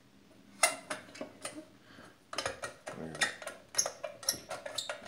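Metal clicks, scrapes and clinks as the cover of a Honeywell R4795 flame safeguard primary control is worked loose and lifted off. There is one sharp click about half a second in, then a run of clattering from about two and a half seconds on.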